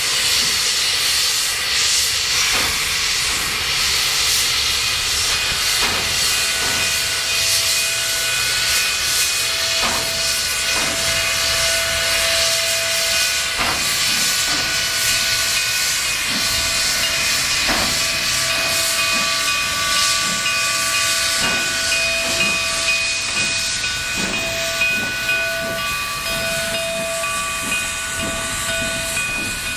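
Denver & Rio Grande Western K-28 steam locomotive No. 478 hissing steam steadily, with scattered irregular knocks and a thin steady whine that comes and goes.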